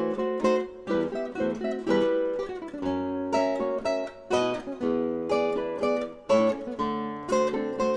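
Background music: a guitar picking a quick run of notes and chords, each note sounding and dying away.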